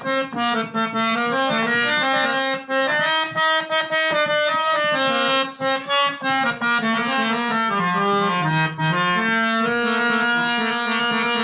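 Harmonium playing an instrumental melody between the sung verses of a devotional bhajan, with drum strokes. The tune steps from note to note, and its low line sinks about eight seconds in before climbing back.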